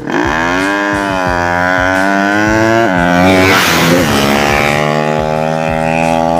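Drag-race motorcycle with an open racing exhaust accelerating hard, its engine note climbing in pitch. The note breaks and drops for a gear change just before three seconds in, with a gust of noise around four seconds, then climbs again and holds high and steady.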